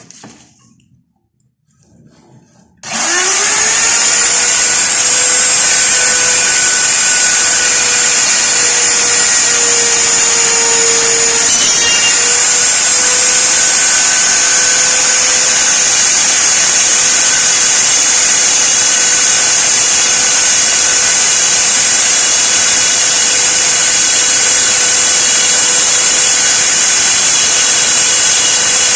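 Copy router's spindle motor starting about three seconds in, rising quickly to speed with a high whine and then running steadily.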